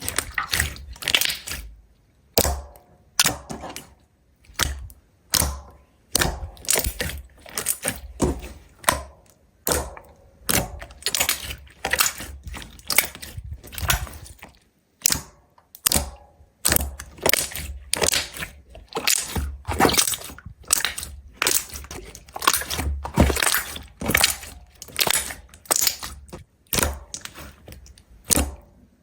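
Slime being squeezed and pressed by hand, crackling and popping in repeated bursts about once a second.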